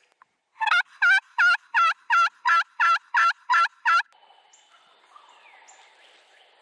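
A series of eleven loud hen turkey yelps, evenly spaced at about three a second, sounded on a turkey call to draw in a distant gobbler.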